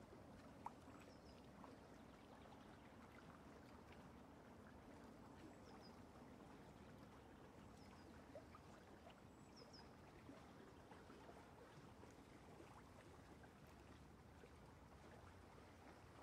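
Near silence: faint hiss with soft scratchy ticks of a small round brush dabbing acrylic paint on canvas, and a sharper little tick about a second in.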